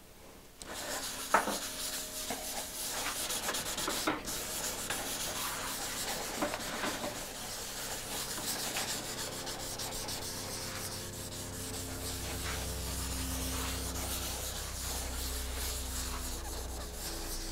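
A non-abrasive finishing sponge rubbing oil tint into the grain of a bare oak tabletop in circles, making a continuous scrubbing swish. There is a sharp knock about a second and a half in and a lighter one about four seconds in.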